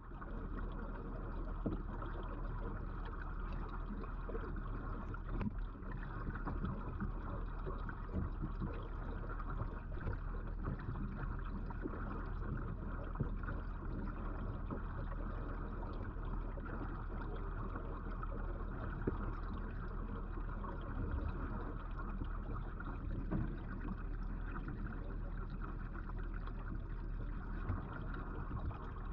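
Steady rushing and trickling of aquarium water circulation, with a constant low electrical hum underneath.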